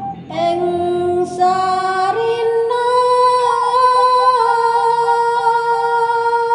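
Music: a female voice singing long held notes that step up in pitch, over a short note repeating about three times a second.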